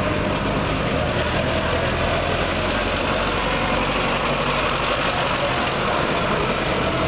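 Vintage tractor engine idling steadily close by.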